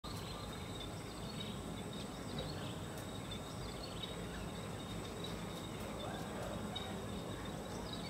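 Garden ambience: a steady low rumble and a thin steady high tone, with faint short bird chirps scattered through.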